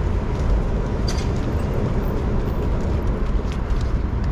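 Street traffic noise: a steady rumble from cars passing on the road beside the sidewalk.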